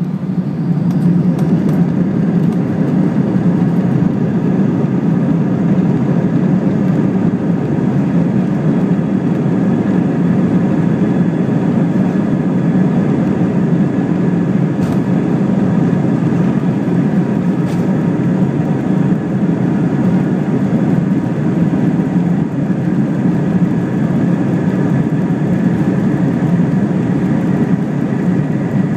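Airbus A320's two jet engines at takeoff thrust, heard inside the cabin over the wing during the takeoff roll: a loud, steady, deep roar that swells over the first second and then holds.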